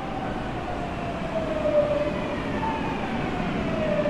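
Tokyu 9000 series train's early Hitachi GTO-VVVF inverter and traction motors whining as it brakes into the platform. Several tones fall slowly in pitch as the train slows, over a steady rumble of wheels on rail.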